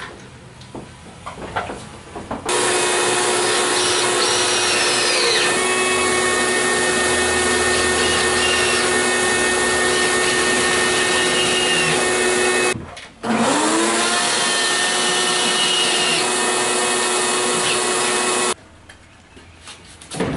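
Cordless drill driving quarter-inch lag screws into the attic stair's frame. The motor runs steadily under load, its whine dropping in pitch once as the screw bites, stops for half a second, then spins back up with a rising whine and runs a few more seconds before stopping.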